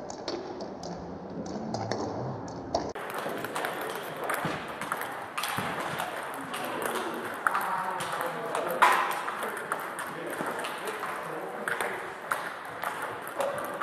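Table tennis balls clicking rapidly and irregularly off bats, the table and the floor during a multiball topspin drill, with one ball fed after another.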